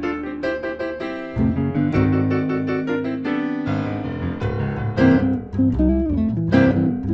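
Jazz piano trio recording of piano, guitar and bass, with the piano in front playing chords and quick runs over low bass notes.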